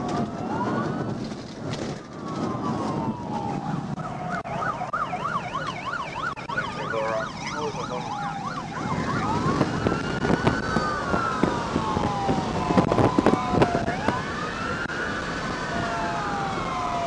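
Police sirens on pursuing patrol cars, overlapping out of step in a slow rising-and-falling wail, with a fast yelp about four to seven seconds in, over steady road and engine noise.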